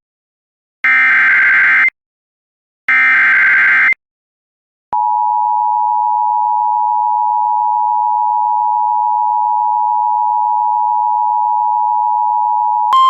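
Emergency Alert System SAME header: one-second bursts of screeching digital data tones, repeated about a second apart. About five seconds in, the EAS two-tone attention signal (853 and 960 Hz together) starts and holds steady for about eight seconds.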